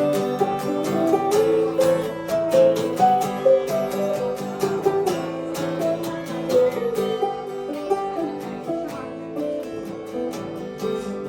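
Acoustic guitar playing an instrumental passage, with quick picked and strummed notes that thin out after about seven seconds into fewer strokes and ringing chords.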